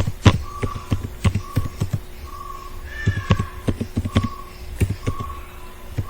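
Computer keyboard keys clacking in irregular bursts as text is typed. A short faint tone repeats in the background about once or twice a second.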